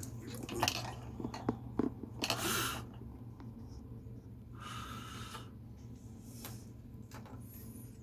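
Pen strokes on paper while drawing: a few light clicks and taps from handling the pen, and two short scratchy strokes, one about two seconds in and one near the middle, over a steady low hum.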